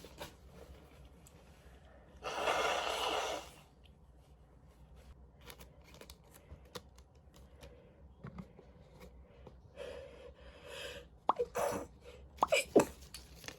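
A person reacting to a nasal swab with a sneeze and gasps: one loud, noisy blast of breath a little over two seconds in, then a run of short, sharp catching breaths near the end.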